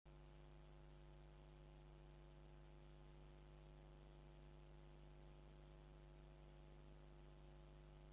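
Near silence: a faint, steady hum of several even tones that switches on abruptly at the start.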